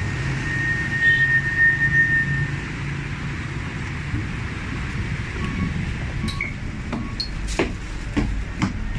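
City bus engine running as the bus pulls up to the stop, with a high steady tone for about two seconds near the start. From about four seconds in, scattered knocks and thumps as passengers climb aboard and move among the seats, over the bus's rumble.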